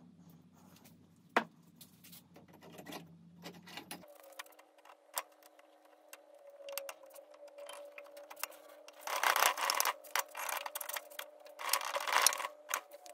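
Hand work on metal engine parts: scattered clicks and taps, then two harsh bursts of rubbing noise about a second long each, near the end. A steady background hum changes pitch abruptly about four seconds in.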